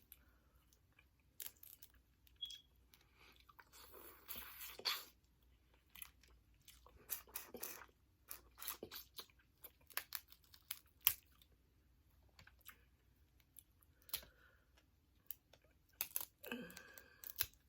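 Close-miked eating of seafood-boil food: chewing with wet mouth clicks and smacks, heard as irregular short sounds. A brief hummed voice sound comes near the end.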